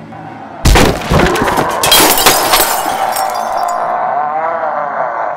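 A sudden crash of breaking glass about half a second in, clattering on for about two seconds, followed by a man's long, wavering snarling roar.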